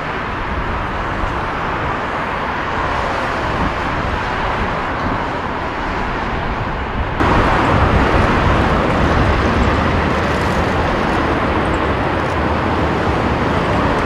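Steady rushing jet engine noise from an Emirates Airbus A380's four Engine Alliance GP7200 turbofans as it flies low near the airport. About seven seconds in it jumps suddenly louder as it cuts to another A380 coming in to land in a crosswind.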